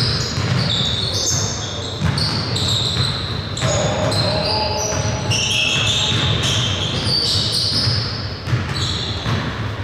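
Indoor basketball game: a ball bouncing on a gym floor, short high-pitched squeaks, and players' voices, all echoing in a large hall.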